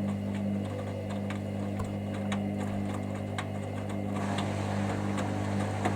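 Hoover Dynamic Next washing machine running into its final spin: a steady motor hum with light ticks about twice a second, and a rushing sound that joins about four seconds in.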